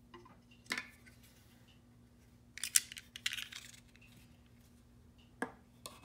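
Sharp metallic clicks and clacks of an OTF (out-the-front) knife being handled and lifted off a stone countertop: a single click, then a cluster of clatter about three seconds in with one loud snap, and another loud click at the end.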